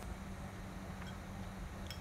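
Low steady hum of room background with two faint short clicks, one about a second in and one near the end.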